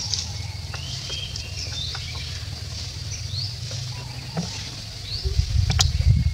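Outdoor forest ambience: short high chirps of small birds, with light rustling and pattering in dry leaf litter as small monkeys move about. Under it runs a low rumble that turns louder and choppier about five seconds in.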